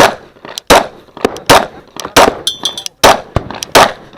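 9mm Glock 19 pistol firing a rapid string of about six shots, roughly one every half second to second, each with a sharp crack and a short echo. A brief metallic ringing comes a little past the middle.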